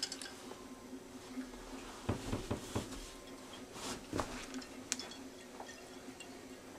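A few soft footsteps and small knocks in a quiet room, over a faint steady low hum.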